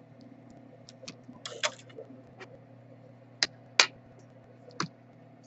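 Scattered sharp clicks and taps of small tools and parts being handled on a repair bench, three louder ones in the second half, over a steady low hum.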